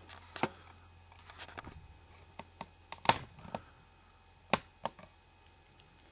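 A small plastic toy accessory, a figure's mask, handled in the fingers: scattered light clicks and taps. The sharpest comes about three seconds in, with two more close together about a second and a half later.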